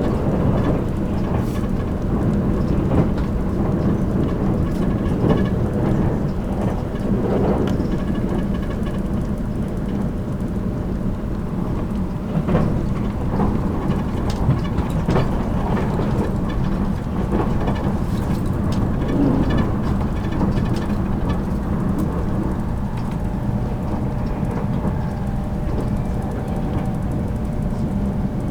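Running noise inside a motor car of a 783-series limited express electric train at speed: a steady rumble of wheels and motors on the rails, with scattered short clicks.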